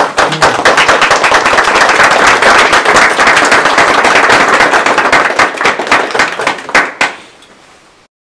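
A small audience applauding, with close, loud claps that thin out and stop about seven seconds in.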